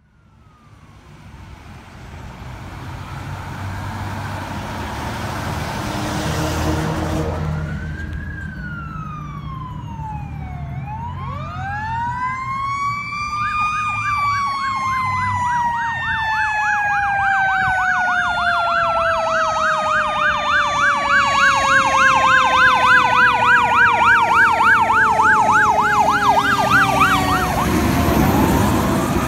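Fire apparatus responding with sirens: an electronic siren wails slowly up and down at first. About eleven seconds in, a Federal Q2B mechanical 'Q' siren winds up and then slowly winds down, with a fast electronic yelp over it. The fire engine's running noise grows louder as it passes close near the end.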